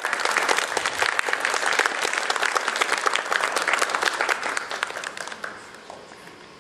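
Audience applauding, a dense patter of many hands clapping that thins out and stops about five seconds in.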